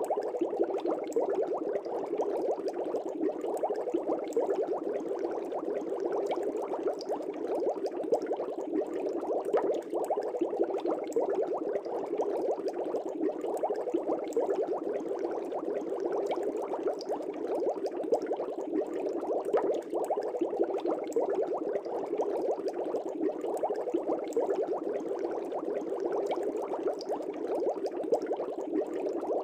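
Fish tank air bubbles: steady, dense bubbling made of many small pops, without let-up.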